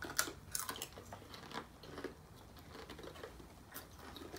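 Pringles potato crisps being chewed by several people: a few faint, irregular crunches and mouth clicks, most of them in the first second.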